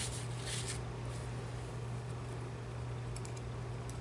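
Paper towel rubbed and pressed over a small tin disc to dry it: a brief rustle about half a second in. A steady low electrical hum runs underneath, with a few faint ticks near the end.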